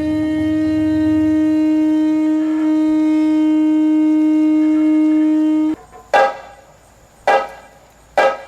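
A wind instrument holds one long, steady low note for about six seconds and cuts off sharply, followed by three sharp percussive clacks, about one a second.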